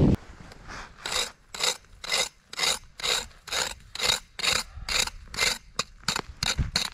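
Footsteps crunching in snow, an evenly paced walk of a little over two steps a second.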